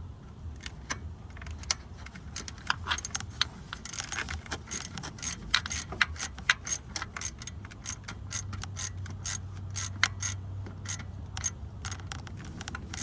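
Small hand ratchet clicking in short, irregular runs of strokes as a fastener is turned by hand, the clicks thickest in the middle.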